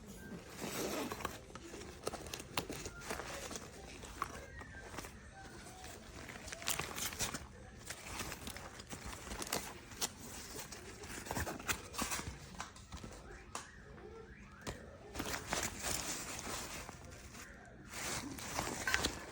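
Handling noises from a fabric laptop backpack: irregular rustling and scraping with scattered sharp clicks, as of nylon fabric, straps and zippers being moved.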